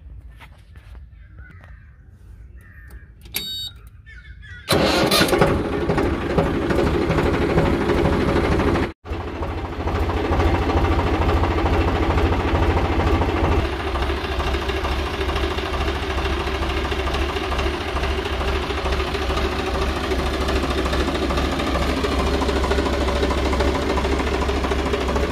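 Swaraj 735 FE tractor's three-cylinder diesel engine starting up suddenly about five seconds in, then running steadily.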